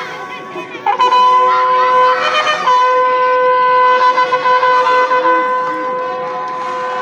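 Bugle call at a flag-lowering, with long held notes: it moves to a new note about a second in, then holds one long note to the end.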